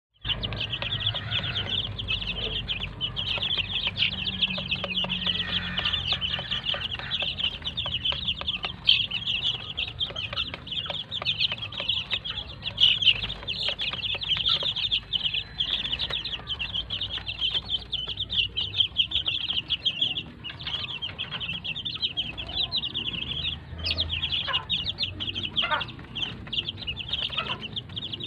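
A flock of three-week-old gamefowl chicks peeping nonstop, many short high chirps overlapping into a constant chatter.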